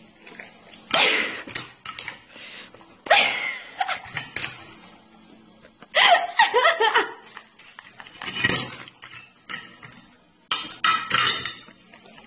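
People laughing in several separate outbursts, with a plate and cutlery clattering against a table.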